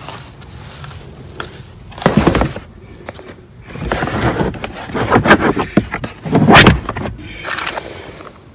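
Molded all-weather floor mat being pushed and slid into a car's footwell, scraping and knocking against the floor and trim in three bursts, the loudest about two seconds and six and a half seconds in.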